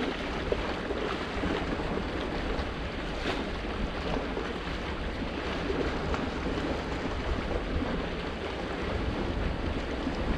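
Wind buffeting the microphone over waves washing and splashing against breakwater rocks, a steady rushing noise.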